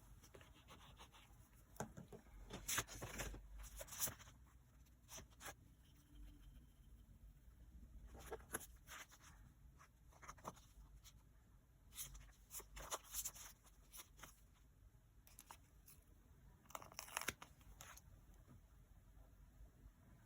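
Stickers and paper being peeled and torn by hand for journal decorating: quiet bursts of crackly tearing, four or so spells of a second or two each, with near silence between.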